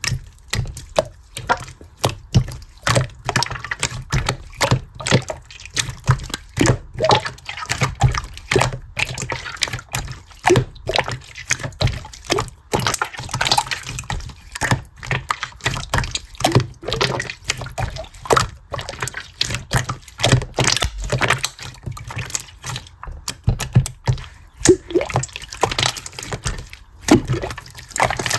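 A dense, irregular run of small clicks and taps, several a second, with a wet, liquid-like quality.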